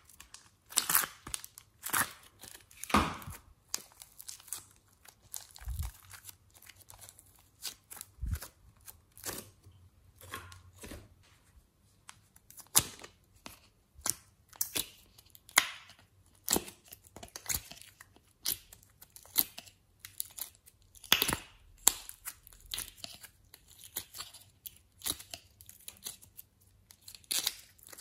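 Thin clear plastic clay containers crinkling and snapping in the hands as soft modeling clay is pried and peeled out of them: irregular short crackles, a few sharper snaps among them.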